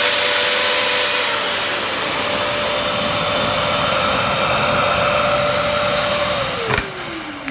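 An electric drill, plugged into the Bosch vacuum cleaner's built-in power socket, runs at a steady speed with a constant whine. About six seconds in it is switched off and winds down, its pitch falling, followed by a click.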